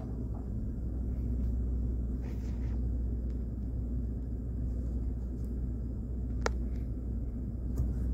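2012 Chevrolet Avalanche's V8 engine idling steadily, heard as a low rumble inside the cab. A single sharp click sounds about six and a half seconds in.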